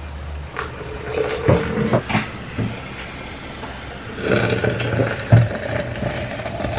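Just-boiled water poured from an electric kettle into a stainless steel French press, a steady splashing fill starting about four seconds in. A few knocks and clicks come before the pour.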